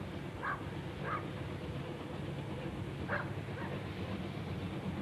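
A dog barking several times, about two barks a second at first and then a pair about three seconds in, over a steady low rumble.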